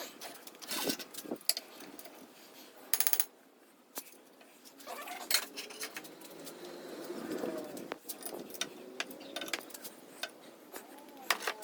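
Metallic clicks and clinks from a ratchet-type torque wrench being worked on a bolt in a bench test rig, with a brief rapid ratcheting rattle about three seconds in.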